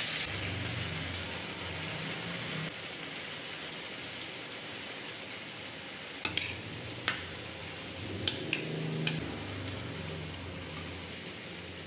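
Tomato-and-chili dipping sauce sizzling steadily in a hot wok just after being poured in. A few sharp clinks of a spoon against a bowl come between about six and nine seconds in.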